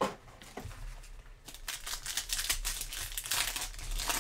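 Foil wrapper of a football trading-card pack crinkling and crackling as it is handled in the hands, the crackle thickening about one and a half seconds in. A short sharp knock right at the start.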